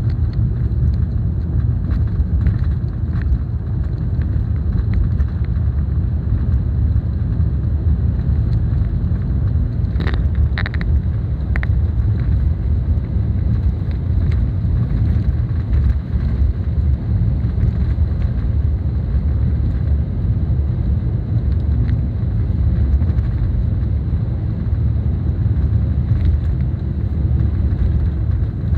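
Inside the cabin of a 2003 BMW 318i (E46) on the move: a steady low rumble of the four-cylinder engine and the tyres on the road, with a few brief clicks or rattles about ten seconds in.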